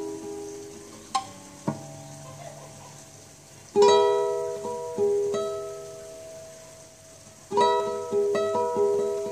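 Nylon-string classical guitar fingerpicked in a slow improvisation, tuned to A=432 Hz: chords are plucked and left to ring out and fade, with a louder chord about four seconds in and another about seven and a half seconds in.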